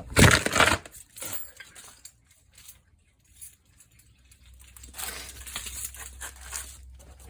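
Handling noise: a loud clatter with small metallic clinks in the first second, then quieter rattling and rustling from about five seconds in.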